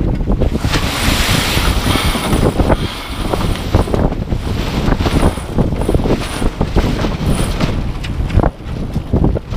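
Wind rushing over the microphone on a sailboat under way, with the loose headsail flapping and rustling as the crew handle it.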